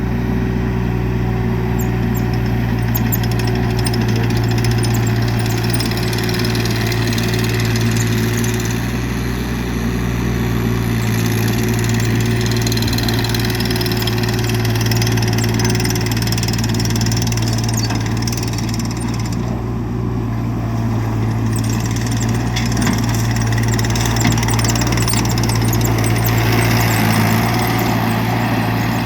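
Perkins 1.4 L three-cylinder diesel engine of an ASV RT30 tracked skid steer loader, running at a steady speed.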